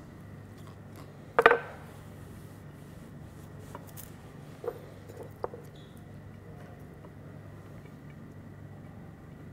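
A sharp clink of crockery, a small ceramic bowl and serving plate, about a second and a half in, followed by two light taps a few seconds later, over a steady low hum.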